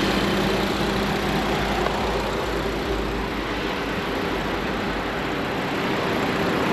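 Volkswagen Vento's 1.2 TSI turbocharged four-cylinder petrol engine idling steadily, heard with the bonnet open, with a faint steady tone over the low running sound.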